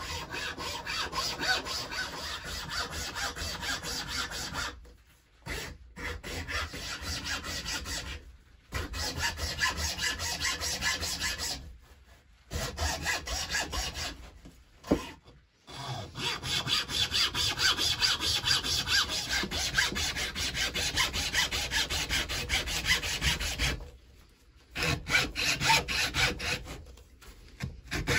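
Hacksaw cutting through the solid tip of a horn, in runs of steady back-and-forth strokes about two a second, with several brief pauses.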